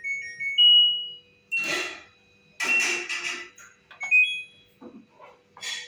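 LG front-load washing machine's control panel beeping: a short rising run of electronic tones, then a two-tone beep about four seconds in, as its buttons are pressed. Louder bursts of clattering handling noise come in between.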